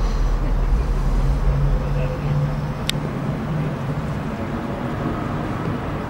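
Low engine hum of a motor vehicle, steady at first and slowly fading away, over a low rumble. A single sharp click about three seconds in.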